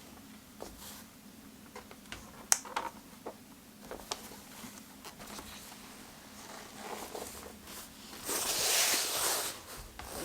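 Light handling sounds: scattered small taps and clicks, then a rustle lasting about a second and a half near the end.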